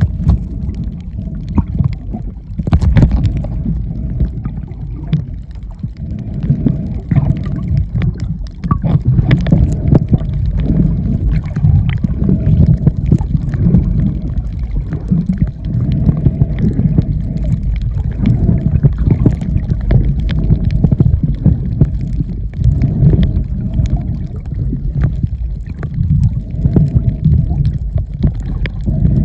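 Muffled underwater churning of water against a camera held below the surface, a heavy, uneven low rumble with scattered clicks and crackles throughout.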